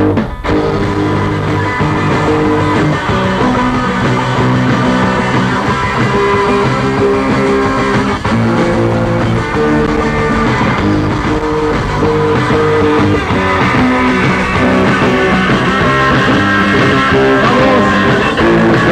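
Rock band playing live, an instrumental passage between sung verses with guitar to the fore.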